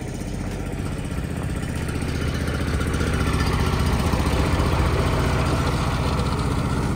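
An engine running steadily at idle, its sound swelling somewhat louder through the middle.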